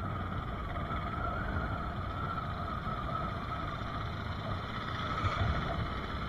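Motorcycle running at a steady riding speed, its engine mixed with wind and road noise on a bike-mounted microphone.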